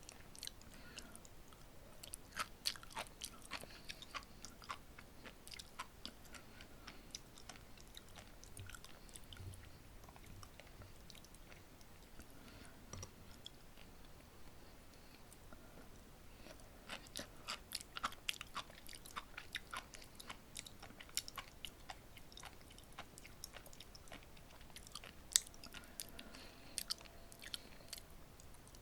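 Close-miked chewing of sea grapes, the tiny seaweed beads popping in quick, crisp crackles between the teeth. The popping comes thick in the first few seconds and again from about seventeen seconds on, with softer chewing in between.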